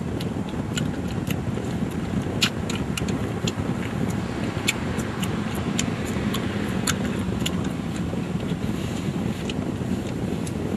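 Road noise of a car heard from inside the cabin while driving: a steady low rumble with scattered light clicks.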